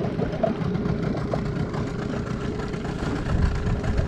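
Small outboard motor of a motorized kayak running steadily at low speed, a constant hum over low rumbling water and wind noise.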